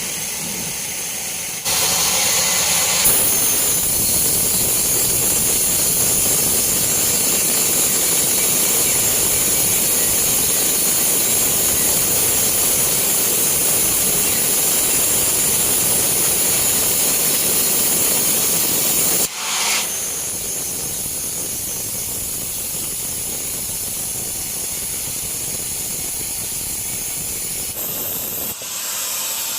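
Sawmill band saw cutting through a teak log, a steady loud hiss of the blade in the wood. It drops to a quieter steady running about two-thirds of the way through.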